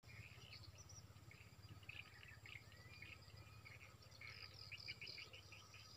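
Faint birds and insects chirping and calling, with a steady run of short chirps at about five a second starting about four seconds in, over a low steady hum.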